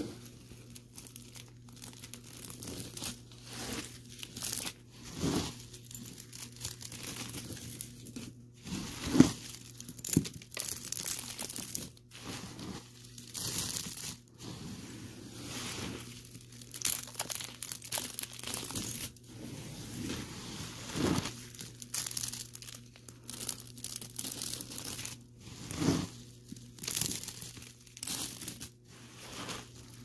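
Vacuum cleaner sucking up crunchy dirt and debris: irregular crackling and crunching bursts over the steady low hum of the motor.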